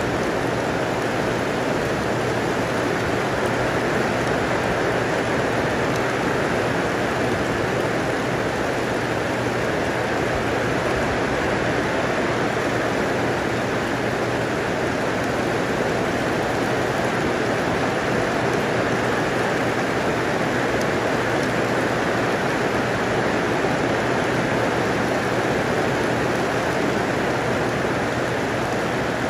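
Heavy rain pouring down on garden plants and ground, a dense, even hiss that holds steady throughout.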